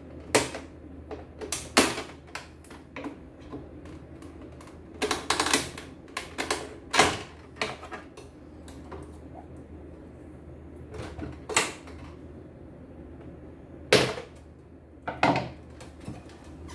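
Plastic casing parts of an embroidery machine clicking and knocking as its covers are unclipped and handled during disassembly. The strikes are irregular, with a quick cluster about five seconds in and two sharp knocks near the end.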